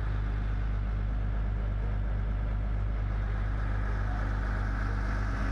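Dive boat's engine running at a steady speed while under way, a low, even drone with the rush of water and wind along the hull.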